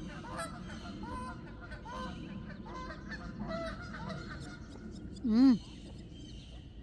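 Geese honking: a run of short honks about twice a second over the first few seconds, then one loud, closer honk about five and a half seconds in.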